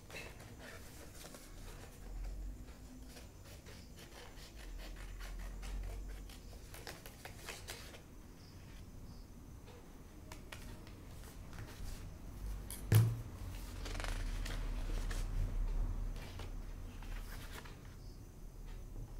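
Scissors cutting through paper: a run of short snips with pauses between them, and one sharp click about two-thirds of the way through.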